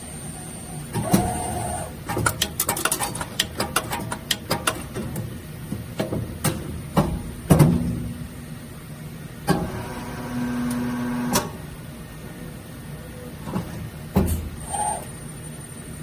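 Ultra-compact high-speed injection molding machine cycling: irregular clicks and clacks, a quick run of rapid clicking a few seconds in, several sharper knocks, and a steady hum lasting about two seconds near the middle.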